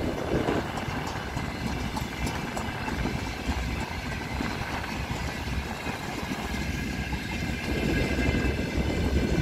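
Heavy iron ore freight train passing, a steady rumble of wheels on the rails that grows louder near the end.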